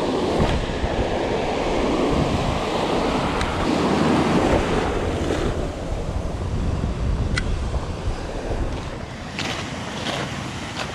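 Ocean surf breaking and washing up the beach, with wind buffeting the microphone; the wash swells about four seconds in. Near the end, a few sharp clicks of cobblestones knocking underfoot as someone walks over a stony beach.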